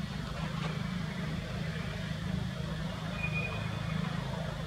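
Steady low motor hum, with one short, thin high chirp a little after three seconds in.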